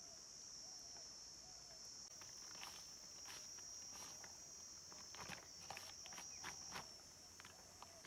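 Steady high insect drone. From about two and a half seconds in, soft irregular crackles and pats of fingers mixing grated coconut sambol on a leaf.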